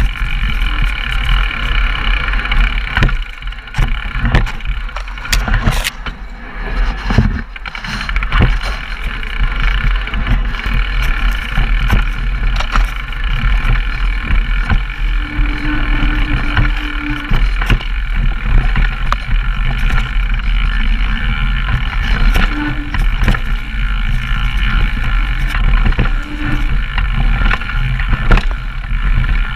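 Raw ride noise of a downhill mountain bike descending a rough trail: a steady rumble of wind and rolling noise on the cameras' microphones, broken by frequent sharp rattles and knocks from the bike over the rough ground. It eases off briefly a few seconds in.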